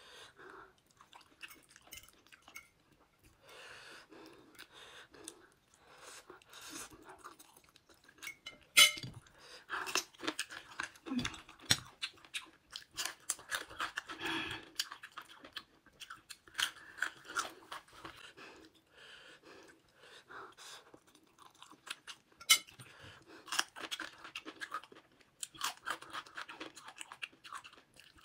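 Close-miked chewing and crunching of food as a person eats, with irregular moist crackles and a few sharp, louder crunches.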